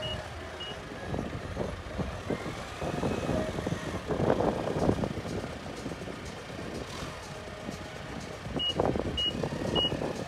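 Forklift's reversing alarm beeping at an even pace, a little under two beeps a second, at the start and again near the end, over the forklift's engine running, which grows louder about four seconds in and again near the end.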